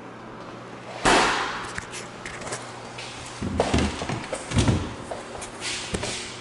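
A refrigerator-freezer door swung shut with a slam about a second in, the loudest sound, followed by several knocks and bumps as kitchen cabinet doors are opened.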